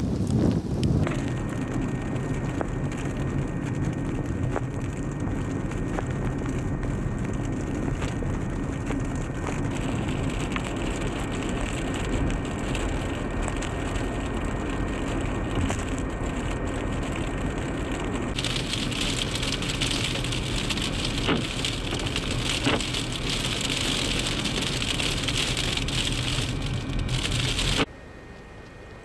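Steady road noise of a vehicle driving on a slushy, snow-covered highway: a low rumble with the hiss of tyres and spray on slush. The hiss turns brighter about two-thirds of the way through, and the sound drops away sharply near the end.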